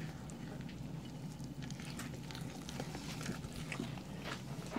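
Small wire whisk stirring thick buttermilk cornbread batter in a ceramic bowl: faint, irregular light clicks of the wires against the bowl and through the wet batter.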